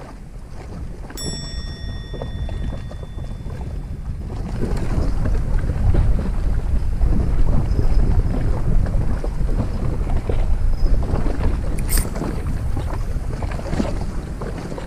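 Wind buffeting the microphone, getting stronger about four seconds in. About a second in, a single clear ringing tone fades out over roughly three seconds, and a sharp click comes near the end.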